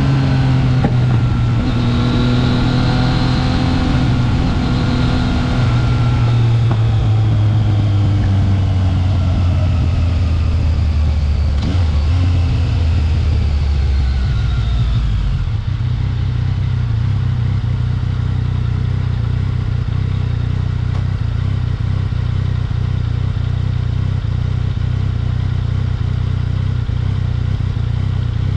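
Yamaha XSR900's three-cylinder engine heard from on board, its revs falling over the first fifteen seconds or so as the bike slows, then running steadily at a low, even pitch.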